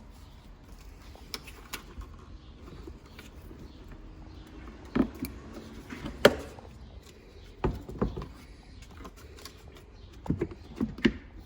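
Hands working on car speaker parts: scattered clicks and knocks of plastic and small hardware being handled and fitted, the loudest about six seconds in, over a low steady hum.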